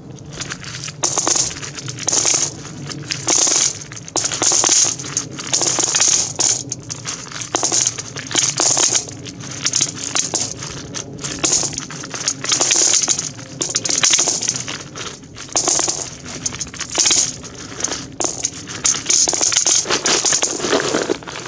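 Russian 1–10 ruble coins pouring out of a plastic canister onto a pile of coins in a metal bucket, clinking and jingling. They come in short rushes, roughly one a second, as the canister is tipped and shaken.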